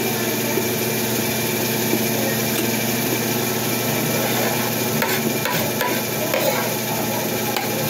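Metal spoon and fork clinking and scraping against a ceramic plate, with a few sharp clicks in the second half, over a steady mechanical hum.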